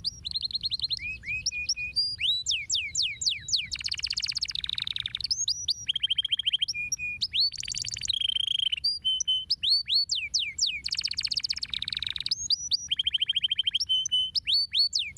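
Domestic canary singing a continuous song of quick falling whistled sweeps and short held notes, broken three times by fast buzzy trills.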